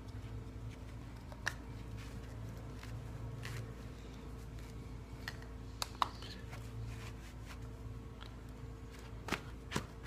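Light clicks and knocks of PVC pipe fittings being handled and pushed onto the ends of a PVC pipe, a handful of them scattered through, with two close together about six seconds in and two more near the end. A steady low hum lies underneath.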